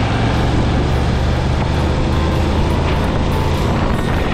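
Motorcycle engine running steadily at cruising speed, heard from a camera on the moving bike, with a constant rush of wind and road noise over it.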